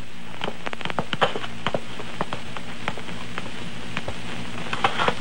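Irregular crackle and scattered clicks over a steady hiss and low hum: surface noise of an old film soundtrack.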